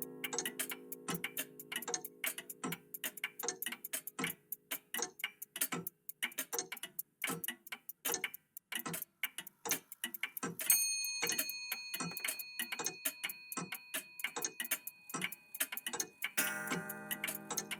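Several old clocks, among them a vintage cuckoo clock, ticking at different rates so the ticks overlap unevenly. About eleven seconds in a single clock chime is struck and rings on, fading over about five seconds. Soft plucked-string music sounds faintly at the start and comes back near the end.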